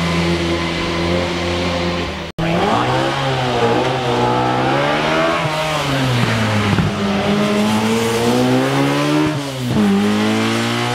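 Competition car engines at full throttle on a hillclimb. First a steady engine note, then an abrupt cut about two seconds in, after which another car's engine rises and falls in pitch through its gear changes, with a sharp drop and climb near the end.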